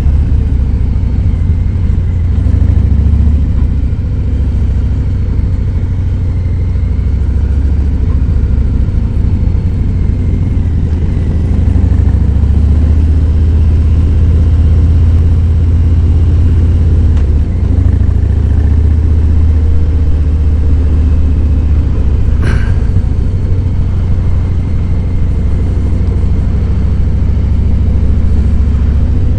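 Harley-Davidson Fat Boy 107's Milwaukee-Eight V-twin engine running steadily under way, a deep low rumble. A brief sharp sound cuts in about 22 seconds in.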